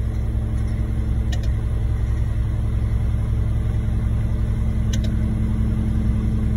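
Concrete mixer truck's diesel engine running steadily with a low, even hum, with a couple of faint clicks.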